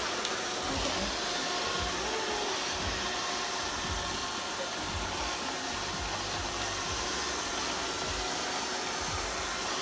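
FONZO robot vacuum cleaner running with a steady whir.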